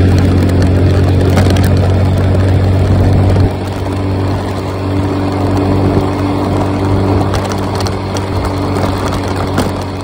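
Scooter engine running steadily at cruising speed, with wind and road noise on the microphone while riding. The sound gets a little quieter about three and a half seconds in.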